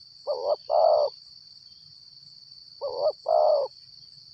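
Spotted dove cooing twice, each call a short note followed by a longer one, about two and a half seconds apart. A steady high insect drone runs underneath.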